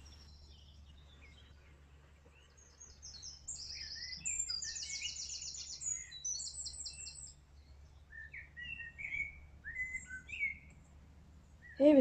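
Songbirds singing. From about three seconds in there are rapid, high-pitched repeated trills, followed by scattered lower whistled phrases.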